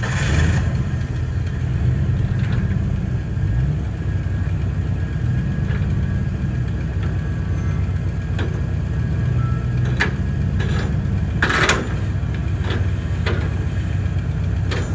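Truck engine running steadily while it tugs at a stuck concrete pump trailer. Several sharp knocks come in the second half, the longest a little past the middle.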